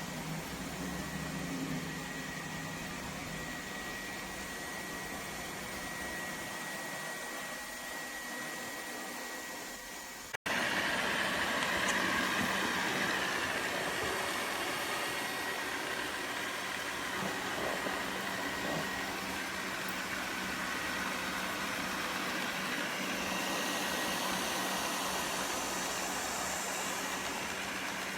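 LEFANT M210 Pro robot vacuum running, its suction fan and brushes making a steady hiss with a thin high whine. The sound breaks off briefly about ten seconds in and comes back louder and brighter.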